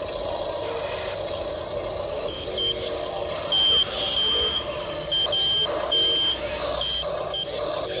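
Electric motors of radio-controlled toy construction machines whining steadily. From about two and a half seconds in, a high electronic beep sounds on and off in uneven short and long beeps, like a toy's reversing-beep sound effect.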